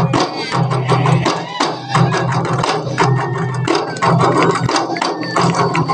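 A group of kompang, Malay hand-struck frame drums, played together in a fast interlocking rhythm of many sharp slaps, with deep open strokes sounding in recurring spells.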